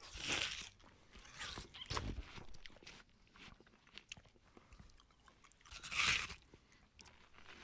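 Knife slicing through a raw onion on a wooden cutting board: a few soft, faint crunches, irregularly spaced.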